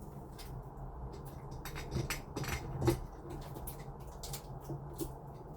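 Light clicks and knocks from lock parts being handled and fitted against a door, with a few louder knocks around two to three seconds in.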